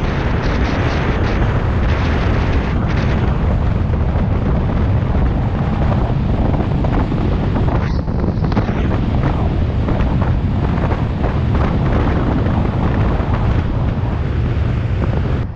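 Loud, steady wind rushing over a camera microphone on a bicycle descending a mountain highway at high speed.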